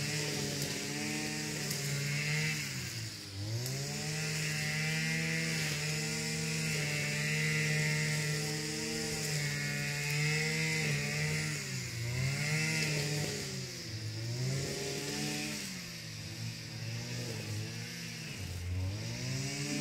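String trimmer (strimmer) engine running at a high steady speed, its pitch dipping briefly and picking back up several times.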